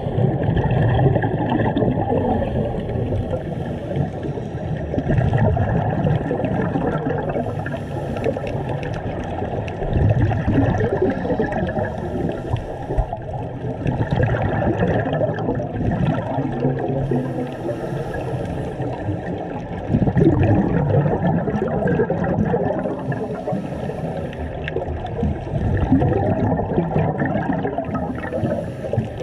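Muffled underwater rushing and gurgling from a diving camera, swelling every few seconds with bursts of scuba exhaust bubbles.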